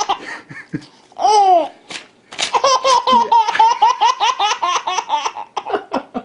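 Baby laughing hysterically at paper being torn: a squealing laugh about a second in, then a short rip of paper sets off a long run of quick, pulsing belly laughs that taper off near the end.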